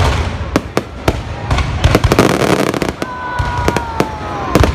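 Fireworks going off: a string of sharp bangs, a dense crackling burst about two seconds in, and a whistle gliding slightly down in pitch for about a second and a half before a loud bang near the end.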